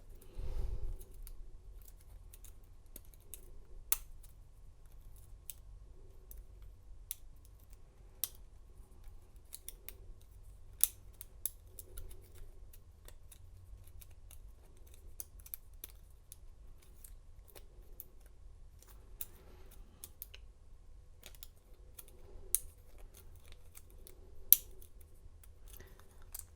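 Irregular small sharp metallic clicks and ticks of a hook pick and pry-bar tension tool working the pins of a Kwikset pin-tumbler cylinder in a Master Lock padlock while it is being single-pin picked, with a soft handling bump about half a second in.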